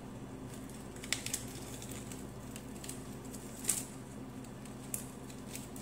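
Lettuce leaves being torn apart by hand: short crisp crackles and snaps, a couple about a second in and another pair near four and five seconds, over a steady low hum.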